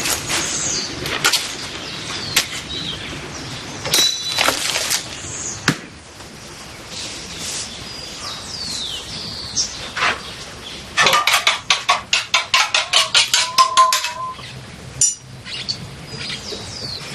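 Birds chirping over a steady background, with scattered sharp clicks and, a little past the middle, a quick run of about a dozen sharp taps lasting about three seconds.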